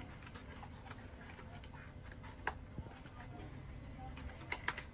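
Faint handling noise of plastic printer drum-unit parts being moved about: a few light clicks and taps, a sharper click about halfway through and two more close together near the end.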